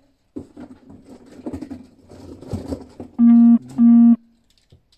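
Plastic toys rustling and clattering as they are rummaged and handled, then two loud, flat electronic buzzer tones close together, each about a third of a second long.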